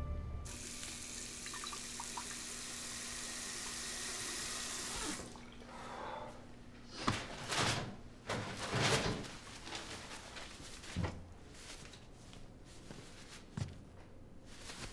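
Bathroom sink tap running into the basin for about five seconds, then shut off. Several short, louder sounds follow a couple of seconds later, with two fainter ones near the end.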